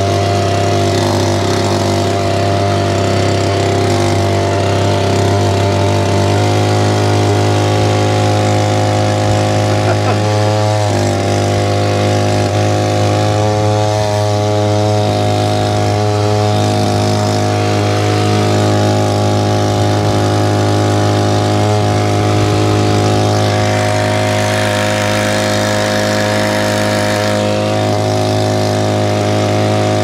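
Small outboard motor on an inflatable boat running steadily under way, a loud constant engine note that shifts slightly in pitch about six seconds in.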